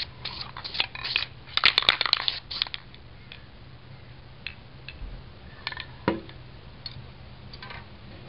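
Paint-stiffened leaf stencils crackling as they are peeled off a metal ammo box and crumpled, in quick dense bursts over the first three seconds. After that, only a few scattered light crackles and a dull knock about six seconds in.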